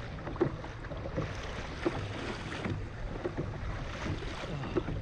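Kayak being paddled hard through rough, choppy sea: water sloshing against the hull with irregular sharp splashes or knocks about once a second, over a low rumble of wind on the microphone.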